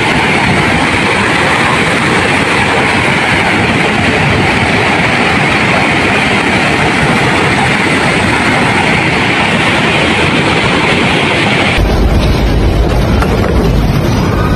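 Continuous loud rushing roar of a landslide, rock and earth pouring down a slope onto a mountain road during an earthquake. About twelve seconds in it cuts abruptly to a deep low rumble.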